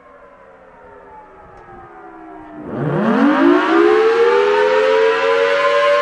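Fainter siren tones slide down in pitch. Then, about two and a half seconds in, a Federal Thunderbolt 1000T siren, driven by its Roots supercharger blower, winds up. Its pitch climbs fast from low into a loud two-tone wail.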